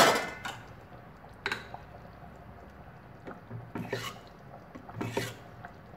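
A wooden spoon stirring thin soup in a stainless steel pot: a few separate sloshes and swishes of liquid, the loudest right at the start.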